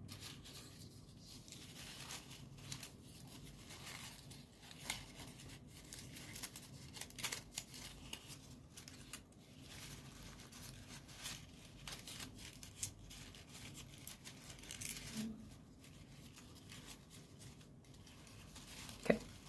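Folded paper origami units rustling and crinkling in short, scattered crackles as they are handled and slotted together into a kusudama, with a sharper click near the end.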